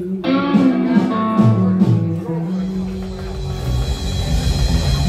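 Live rock band playing: electric guitars, acoustic guitar and bass, with a heavy low bass part coming in about halfway through.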